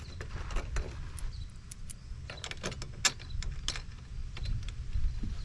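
Light metallic clicks and taps of small M6 bolts and washers being handled and started by hand in the holes of a steel seat-mount plate, coming irregularly over a low rumble of handling noise.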